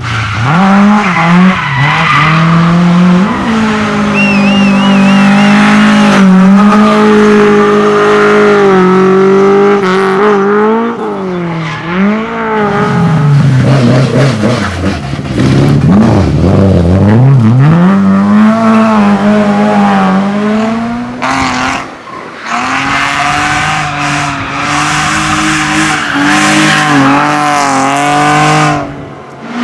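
Rally car engine revving hard through the gears, its pitch climbing and dropping repeatedly with shifts and lifts off the throttle, with a short tyre squeal about four seconds in. The sound cuts out abruptly about 22 seconds in and again near the end before carrying on.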